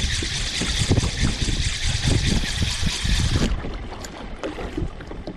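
Wind buffeting the microphone with water rushing and splashing around a kayak at sea. A steady hiss of water cuts off suddenly about three and a half seconds in, leaving the gusty rumble.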